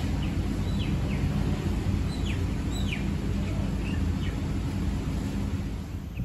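Steady low rumble of city street traffic, with a small bird calling a quick series of short, downward-sliding chirps over the first four seconds.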